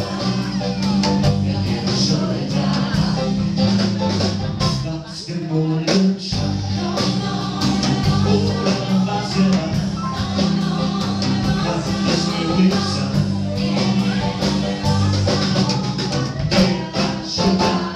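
Live band music: a woman singing lead through a microphone over acoustic guitar, upright bass and drum kit, with regular drum strikes keeping the beat.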